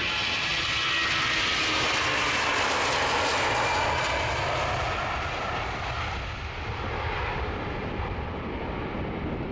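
Airbus A340-300's four CFM56 turbofan engines at takeoff thrust as the jet rolls down the runway and rotates: a steady jet roar, loudest a few seconds in, then easing slightly as the aircraft moves away.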